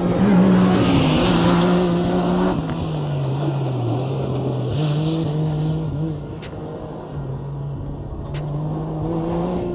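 Rally buggy engine running hard, its pitch rising and falling with the throttle, under a rushing hiss that is strongest in the first couple of seconds.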